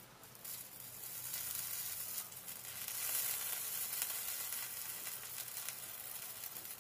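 Solder paste sizzling on a copper cable under a hot soldering iron. The hiss builds over the first few seconds and eases off near the end.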